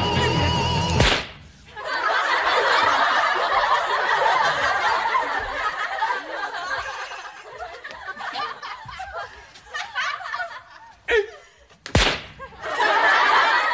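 Audience laughter that swells after music cuts off with a sharp hit about a second in, then fades. Two sharp smacks near the end set off another burst of laughter.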